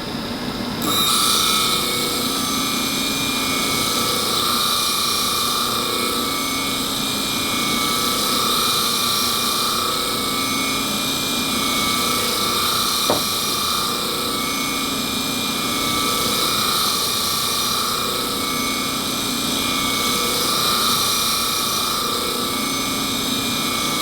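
Wahl 5-in-1 clipper blade being ground on a spinning grinding wheel: a loud, steady grinding hiss with a high motor whine. It starts about a second in when the blade meets the wheel and swells and eases every few seconds as the blade is worked. A single sharp click comes about halfway through.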